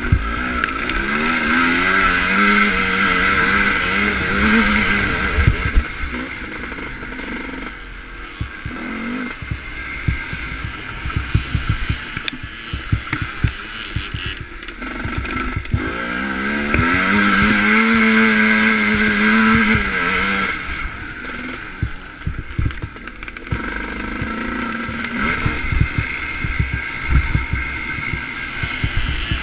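Vintage ČZ two-stroke motocross motorcycle engine revving hard on a dirt track, heard from onboard: the revs climb in long pulls and drop off sharply, twice, between quieter stretches. Short knocks and jolts from the rough track run through it.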